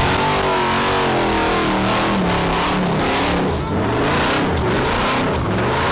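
Car engines revving hard at a drift pit, their pitch rising and falling again and again over a steady wash of noise.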